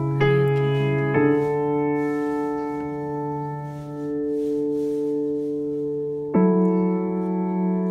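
Background music of slow, held keyboard chords, changing chord a few times, once about a second in and again near the end.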